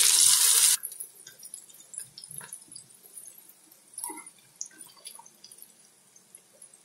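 Okra sizzling loudly in hot oil in a pan, cut off abruptly under a second in. Then faint, scattered light clicks and taps as the fried okra pieces are set down on a plastic tray.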